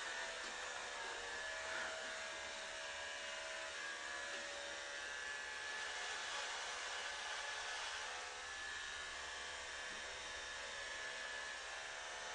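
Steady, even whir of a small motor.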